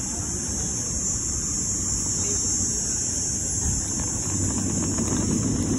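Steady low vehicle rumble, even and unchanging, with a constant high hiss over it.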